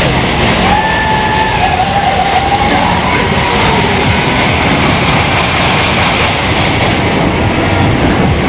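Loud fairground ride running: music from the ride's sound system over the steady noise of the machinery, with a wavering melodic line in the first few seconds.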